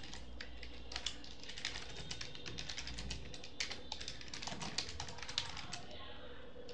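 Computer keyboard typing: quick, irregular key clicks as a line of code is typed, thinning out near the end, over a low steady hum.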